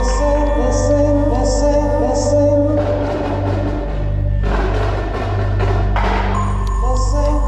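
Indoor percussion ensemble music: held chords over a steady low drone, with a rushing wash of sound through the middle.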